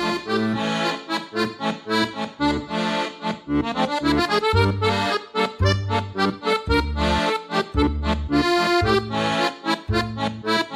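Instrumental music: a melody over a bass line that settles into evenly spaced notes about once a second from around the middle.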